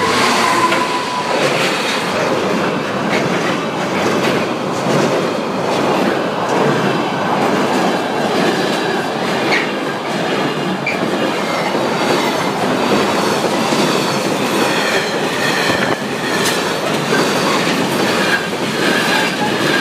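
A Freightliner freight train hauled by a Class 66 diesel locomotive passing, its wagons rolling by with a steady, loud rush of wheel and rail noise that lasts throughout.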